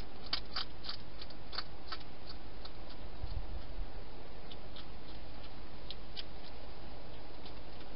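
Wild hedgehog eating inside a plastic feeding box: irregular crisp crunching clicks, bunched at the start and again past the middle, over a steady hiss, with a soft low bump at about three and a half seconds.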